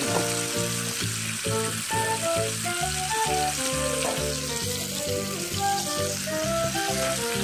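Bone-in ribeye steak sizzling in a cast iron skillet on an Iwatani 35FW portable gas stove, with a steady hiss. Background music plays over it, its melody stepping from note to note.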